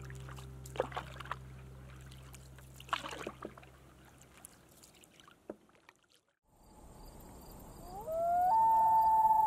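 Canoe paddle strokes dipping and dripping in calm water while background music fades out. After a moment of near silence, a long animal wail rises and then holds on a high note near the end, the loudest sound here.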